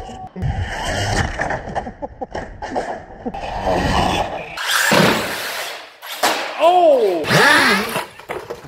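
Large RC monster truck crashing and tumbling on tarmac and concrete, its tyres and body scraping and clattering as it rolls over, with a loud noisy stretch about five seconds in and a pitched sound bending up and down near the end.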